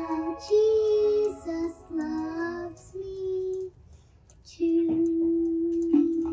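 Children singing a song in short held phrases. The singing pauses about four seconds in, then resumes with one long held note near the end.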